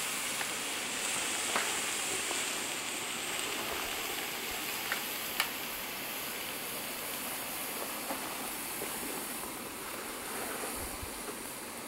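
Tri-tip steaks sizzling on a gas grill: a steady hiss that slowly fades, with a few faint clicks.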